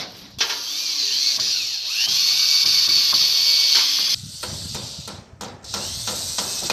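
A power drill running for about four seconds, its motor whine rising in pitch as it speeds up, then stopping; a series of scattered knocks and rustles follows.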